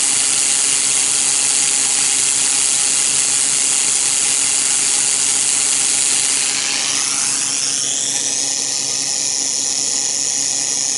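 A jet of compressed air hissing steadily onto a 3D-printed fidget spinner spun up to about 45 revolutions per second, with the whir of the spinning rotor underneath. The hiss changes colour about six or seven seconds in.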